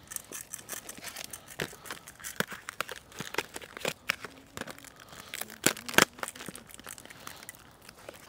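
Steak frying in a cast-iron pan over hot coals: irregular crackling and pops, with the sharpest pop about six seconds in.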